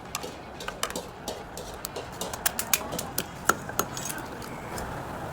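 Sharp, irregular knocks and cracks of a cleaver chopping through crab shells, about a dozen strikes, the loudest around the middle.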